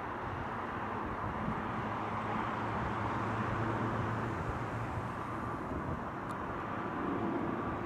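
Jet engines of an Airbus A320neo airliner climbing out after takeoff: a steady, even roar.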